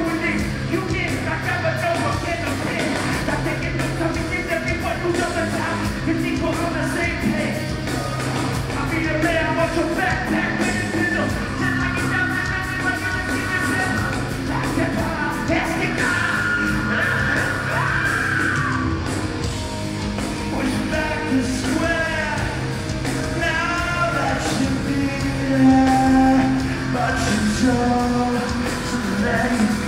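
Live metal band playing: distorted electric guitar, bass and drums under a singer's sung and shouted vocals, heard from the crowd in a large hall.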